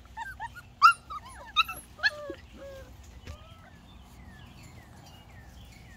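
Goldendoodle puppies whimpering and yipping: a run of short, high-pitched cries, loudest in the first two seconds, then fainter.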